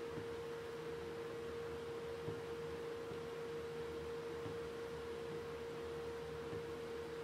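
Steady single-pitch electrical hum from the DC welder supplying current for electrolytic etching of stainless steel in salt water, with a faint lower hum beneath it.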